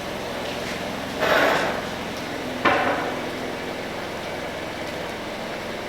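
A short scraping rush about a second in, then a single sharp slam with a brief ring-out: a panel of the car being shut, over a steady hum.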